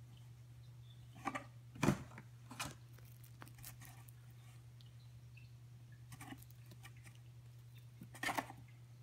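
A cat pouncing and pawing at a feather wand toy beside cardboard: a few short scuffs and rustles, the loudest about two seconds in, a few more over the next second and another pair near the end, over a steady low hum.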